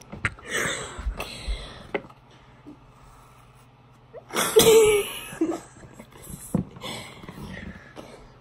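Teenage girls laughing breathily, with wheezing giggles and a louder burst about four and a half seconds in.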